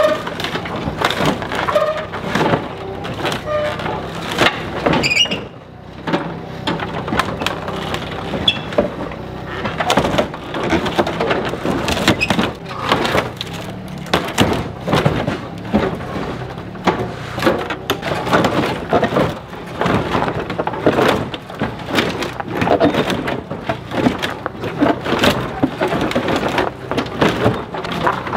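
Dense, irregular clanks, crunches and rattles from the body of a stripped Dodge Caravan minivan as an excavator bucket, strapped to its frame, jerks and shakes its front end, over the steady low running of the excavator's engine.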